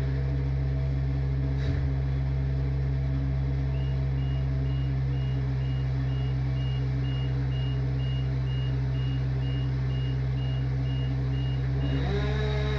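Heavy vehicle engine running steadily, with a reversing alarm beeping about twice a second from about four seconds in until near the end, when the engine speed changes.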